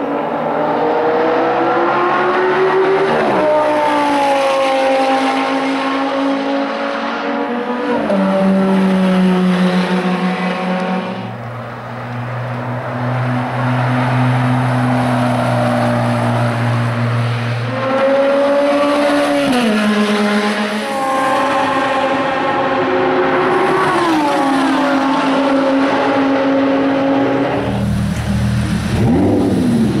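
High-revving racing car engines accelerating hard on the circuit, their pitch climbing and then dropping sharply at each upshift, several times over, with a Porsche 911 GT3 flat-six among them. Near the end a deeper engine runs at low revs.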